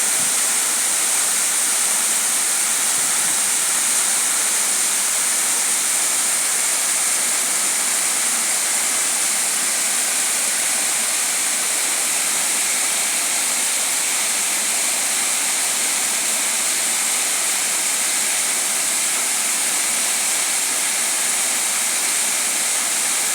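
Waterfall pouring, a steady, loud rush of falling water with no breaks.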